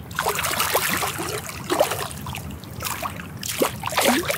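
Water splashing and sloshing as a hooked sheepshead thrashes at the surface while it is reeled in close, in short irregular splashes.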